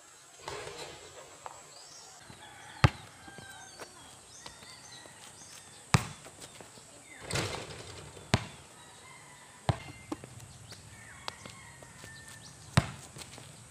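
A basketball bouncing on an outdoor concrete court: about five sharp single bounces a few seconds apart, with birds chirping in the background.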